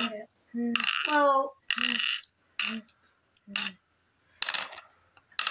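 Glass mancala gems dropped one at a time into the cups of a wooden board, clicking against the wood and the other gems several times. Brief voice sounds from a child come in between.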